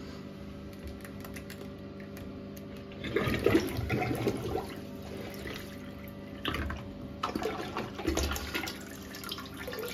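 A Luigi Plumbing bellows plunger is pumped in a blocked toilet bowl, forcing the water to slosh and gurgle. The plunging comes in several bursts, starting about three seconds in.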